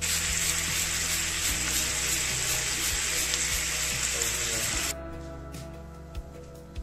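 Meat pieces sizzling as they fry in a frying pan, a steady hiss that cuts off suddenly about five seconds in. Background music plays throughout.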